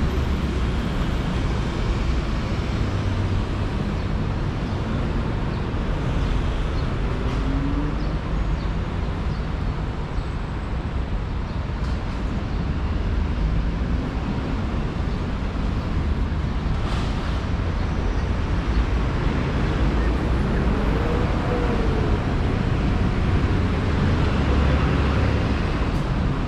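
Steady city road traffic: cars, vans and buses passing on a busy street, a continuous wash of noise with a deep rumble.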